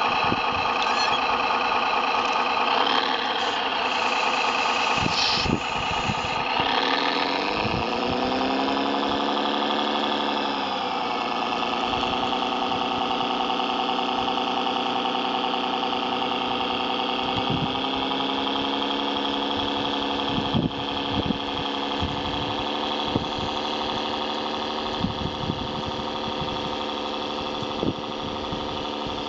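Engine sound of a large RC Caterpillar bulldozer model: it runs busily at first, falls in pitch about eight to eleven seconds in, then settles into a steady idle. A few sharp clicks and knocks come in the second half.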